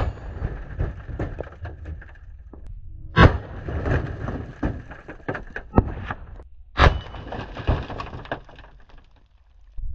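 Three rifle shots from a Big Horn Armory Model 89 lever-action in .500 S&W, about three and a half seconds apart, heard from beside the targets: each sharp crack comes with bullets smashing bricks, rock and steel plates, followed by fragments clattering down.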